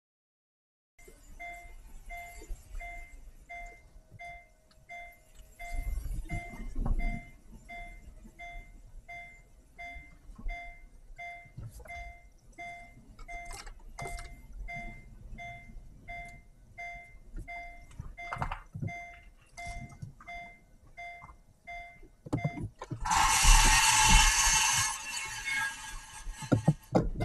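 A car's reverse warning beeper chiming about twice a second while the car backs up, over low tyre and body rumbles. Near the end a loud harsh grinding, about two seconds long: the noise that came as the car reversed, after which the rattle stopped, which the owner takes for a pebble caught in the brake being freed.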